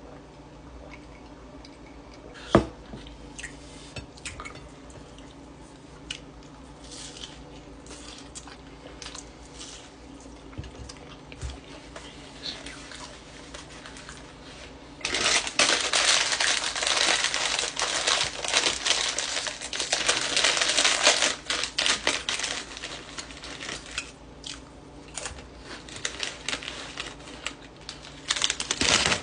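A single sharp knock, then a long spell of loud crackling from about halfway through, the crinkling of a plastic chip bag being handled and opened, tapering into scattered crinkles and crackles near the end.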